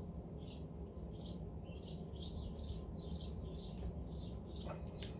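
A small bird chirping over and over, short high calls about two or three a second, over a low steady background. A light knock near the end.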